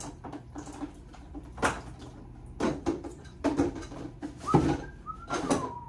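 About five separate knocks and clatters from a wrench and the brass fittings of an inline ice-machine water filter being handled and set down, with a couple of short squeaks near the end.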